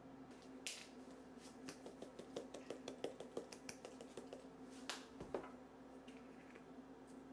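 Light, sharp clicks and taps in a quick, irregular run over a faint steady hum. The clicks stop about five and a half seconds in.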